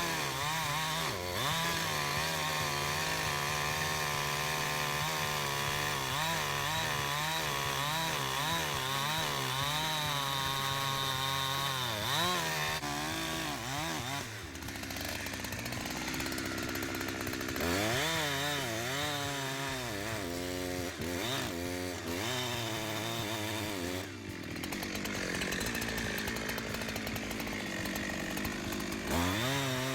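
Holzfforma G372XP two-stroke chainsaw cutting firewood, its engine pitch wavering up and down as the chain works through the wood, with brief drops in level about halfway through and again later.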